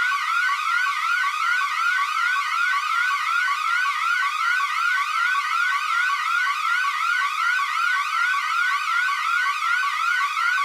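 Electronic emergency alarm tone: a high, quick rising sweep repeated over and over at an even pace, steady and unbroken.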